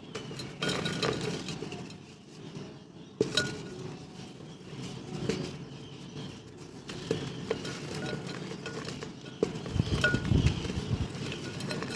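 Dried mud and clay pot pieces being crushed and crumbled, with irregular crunches and sharp clinking cracks as hard fragments break and knock together. A few dull thuds near the end.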